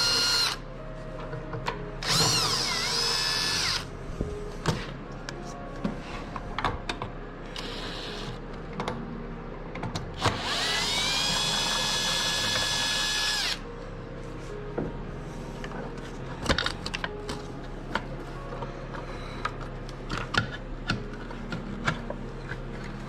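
Cordless drill or driver run in bursts to back out screws from the trolling motor's side plates, each time spinning up with a quickly rising whine and then holding steady; the longest burst is about three seconds. Between the bursts come clicks and light clatter of the screws and parts being handled.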